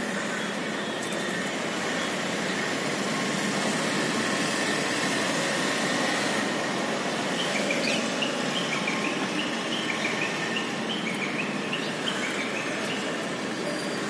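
Steady hum of city traffic noise, with a run of short, high bird chirps repeated through the second half.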